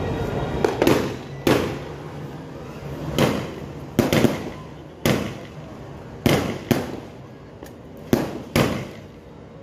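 A 16-shot consumer fireworks cake firing its shots one after another: about ten sharp reports at uneven intervals, each followed by a short echo.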